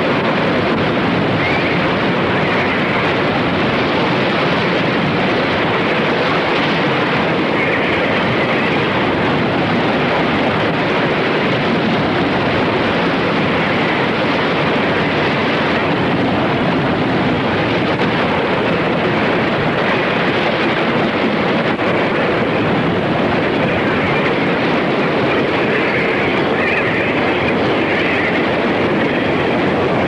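Ocean surf breaking against a rocky sea-cliff coastline: a steady, dense rushing noise.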